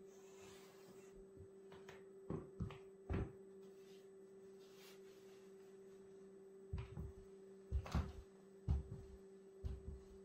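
Footsteps of lug-soled Tamaris leather ankle boots on a laminate wood floor: a few short heel knocks a couple of seconds in, then a quicker run of steps from about seven seconds on. A steady faint hum lies underneath.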